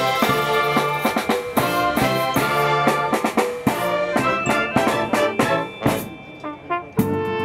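A wind band of clarinets, brass and drums playing a tune with a steady drum beat. Near the end the music drops away briefly, and a new passage of held brass and woodwind chords begins.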